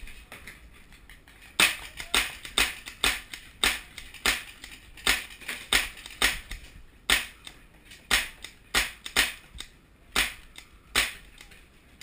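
Paintball markers firing: a run of sharp pops, roughly one to two a second and irregularly spaced, starting about one and a half seconds in.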